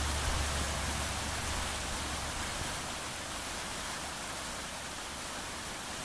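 Steady rush of flowing creek water, with a low rumble underneath that fades out over the first few seconds.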